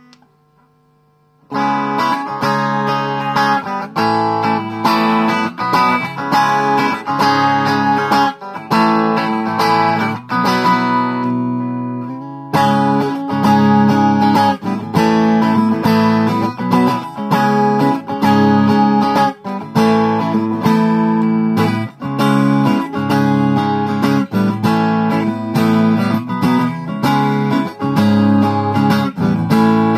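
Chinese replica Fender Stratocaster electric guitar, with an ash body, maple neck and single-coil pickups, being played. Chords and picked phrases start about a second and a half in and continue with frequent note attacks. Near the middle a chord is left to ring and fade for a moment before the playing picks up again.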